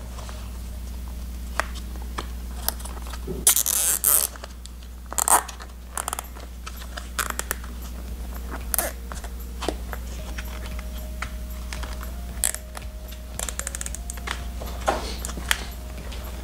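Hands fitting a rubber control-arm boot and a nylon cable tie: scattered sharp clicks, scrapes and rustles of the tie and rubber being handled, with a steady low hum underneath.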